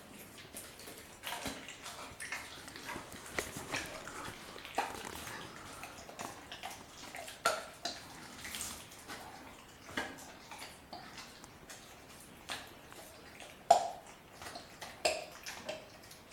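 German Shepherd puppy chewing a raw chicken quarter: irregular wet crunching and clicking of bone and meat between his teeth, with one sharp crack about three-quarters of the way through.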